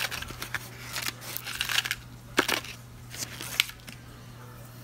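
Rustling and light clicking from handling cucumber seeds and their packet, with a string of sharp ticks over the first three and a half seconds. After that only a low steady hum remains.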